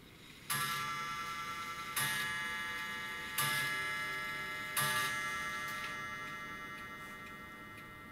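The coiled 'Adler Gong' spring of an old Mauthe pendulum clock movement is struck four times by its hammer, about a second and a half apart: the clock striking four o'clock. Each stroke is a ringing chime of many tones that fades slowly, and the escapement ticks faintly underneath.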